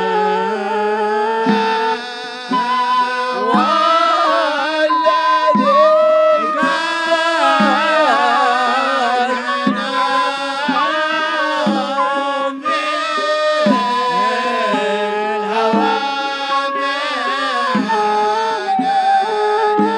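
Hadhrami zarbadi music: male voices singing a religious qasida to small frame-style hand drums and a large double-headed drum, with a reed flute carrying the melody.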